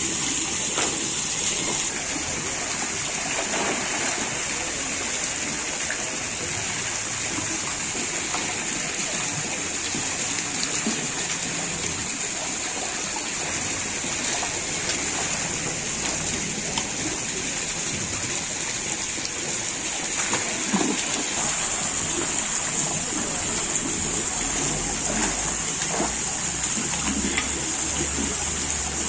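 Steady rush of water pouring into a shallow tiled fish tank, with scattered short splashes as rohu thrash and a hand net and wading legs move through the water.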